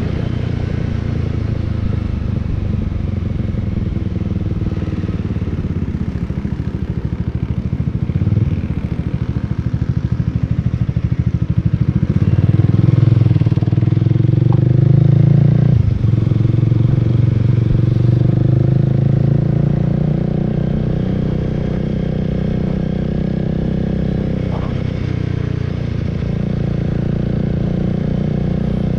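Honda Rebel 300's single-cylinder engine running under way, heard from the rider's seat along with wind and road noise. About halfway through the engine pulls harder and grows louder, then drops off sharply as the throttle closes.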